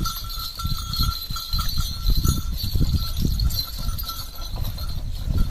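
Two bullocks hauling a loaded rubber-tyred cart along a dirt track: an irregular low rumble of the rolling cart and the animals' steps, with a faint steady high ringing over it.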